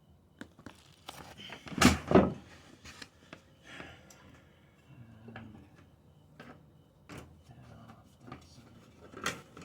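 Clunks and rattles of metal parts as the rear wheel of a GY6 150cc scooter is wiggled and pulled loose, with two loud knocks about two seconds in and scattered lighter clicks after.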